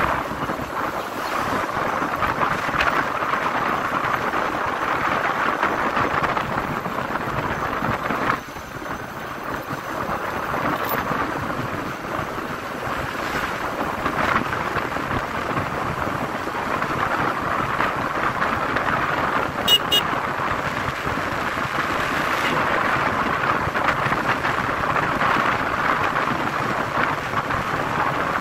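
Wind rushing over the microphone of a moving motorcycle, with road noise underneath. The rush dips briefly about eight seconds in, and a short burst of sharp clicks comes about twenty seconds in.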